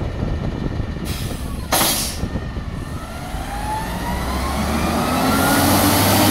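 Autocar ACX McNeilus front-loader garbage truck, natural-gas powered, releasing its air brakes with two hisses of air about a second in, the second louder. Then the engine and drivetrain rise steadily in pitch and grow louder as the truck pulls away.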